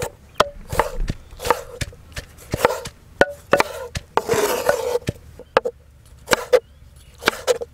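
Steel chef's knife dicing tomatoes on a wooden cutting board: sharp knocks of the blade striking the board, irregular, about one to two a second, with one longer scraping stroke about halfway through.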